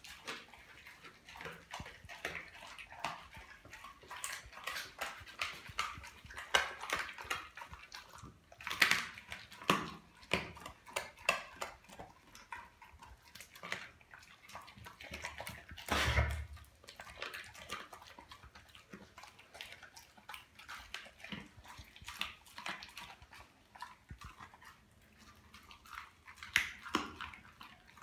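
A Doberman chewing a whole raw tilapia, with wet smacking and the crunch of fish flesh and bone in irregular clicks. There is a single heavier thump just past halfway.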